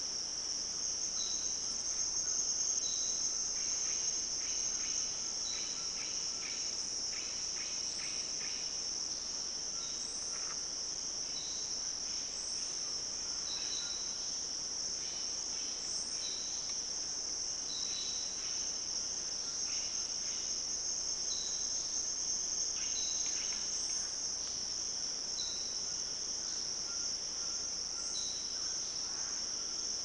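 Rainforest insect chorus: a steady high-pitched drone, with a short high note repeating every second or two and scattered chirps over it.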